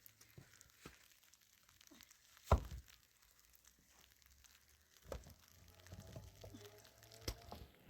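Scattered light knocks and rustles of things being handled, with one louder thump about two and a half seconds in.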